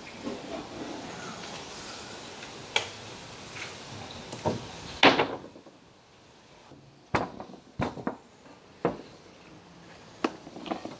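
Scattered sharp knocks and clicks from handling a tape measure, a plasterboard sheet and its timber frame. The loudest clack comes about five seconds in. A steady background rush fades out around the same time, and a few lighter knocks follow.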